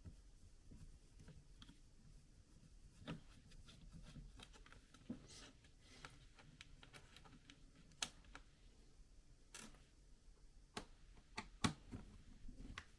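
Faint, scattered clicks of a screwdriver and small screws as the bottom-case screws of a laptop are taken out and set down, with near silence between them.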